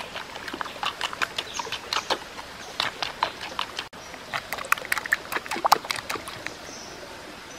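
Wooden spoon stirring a thin chili sauce in a shallow clay bowl: a quick, uneven run of light clicks, taps and scrapes of wood on fired clay, thickest in the middle and fading away near the end.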